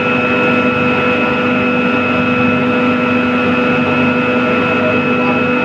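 Steady machine drone with several constant hum tones, unchanging in level throughout.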